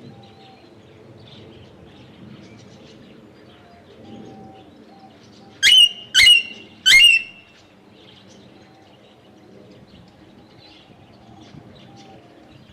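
Aviary birds chirping. A little past halfway a bird gives three loud, shrill calls in quick succession, each sweeping up and then held briefly at one high pitch.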